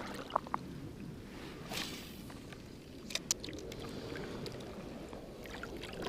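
Water swishing and sloshing around a person wading waist-deep in a creek, with a swell of splashing about 2 seconds in and a few sharp clicks.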